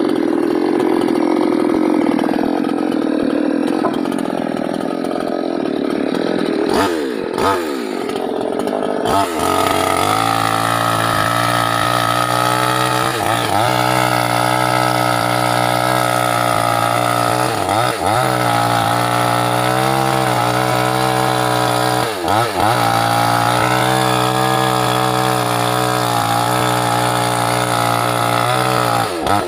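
Small two-stroke petrol chainsaw running hard through teak wood. The engine note is rough and lower for the first several seconds, then settles into a steady high whine from about nine seconds in. The pitch dips and recovers briefly a few times as the throttle is eased.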